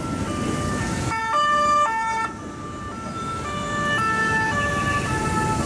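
French police two-tone sirens sounding high and low notes in turn, two of them overlapping at different pitches, over engine and traffic rumble. The sirens are loudest from about one to two seconds in.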